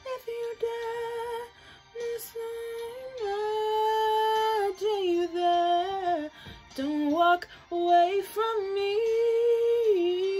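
A woman singing unaccompanied, a slow melody of long held notes with short breaks between phrases.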